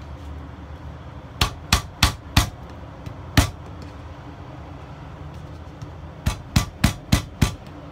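Lemongrass stalks being bruised with the flat of a large kitchen knife on a cutting board: sharp whacks, four in quick succession about a second and a half in, a single one in the middle, and five more in quick succession near the end.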